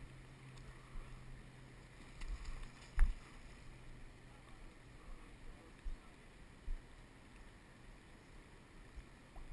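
Low thumps and knocks around a drift boat, with one sharp knock about three seconds in and a few softer ones later, over a faint steady hum and wind on the microphone.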